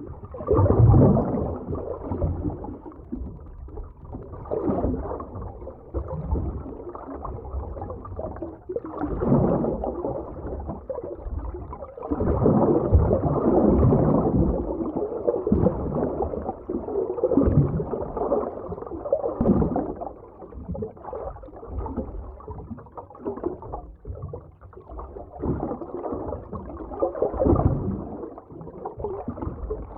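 Underwater ocean ambience: muffled, low water movement with bubbling, swelling and fading every few seconds like slow waves.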